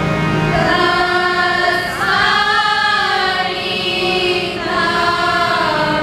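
A group of girls singing a Sikh shabad kirtan together, holding long notes that slide up and down over a steady harmonium drone.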